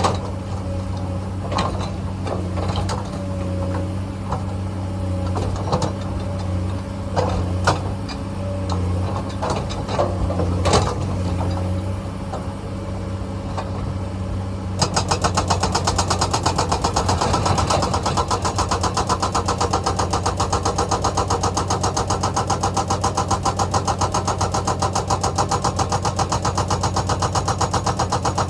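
Excavator diesel engine running steadily, with scattered sharp knocks of rock and the steel bucket. About halfway through the sound changes suddenly to a loud, fast, even pulsing rattle that continues to the end.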